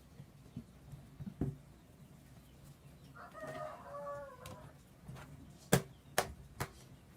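A chicken calls once, a wavering call lasting about a second and a half, in the middle. Sharp clicks come once early on and three times in quick succession near the end; these are the loudest sounds.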